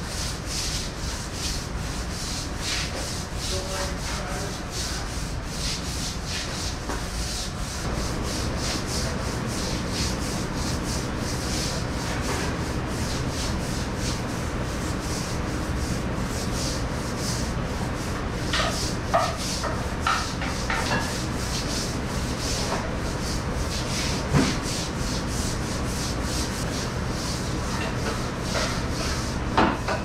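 Stiff deck brush scrubbing a wet tile floor in quick, repeated back-and-forth strokes, over a steady low hum. A few sharp clacks and knocks cut in during the second half.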